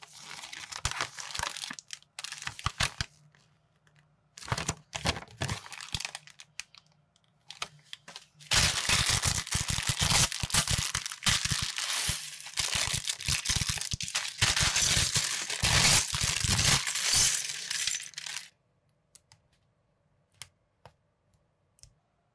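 Clear plastic parts bags and a paper instruction sheet crinkling as hands handle them and open the bags. There are short bursts at first, then dense, loud crinkling for about ten seconds in the middle. Near the end only a few faint clicks are heard.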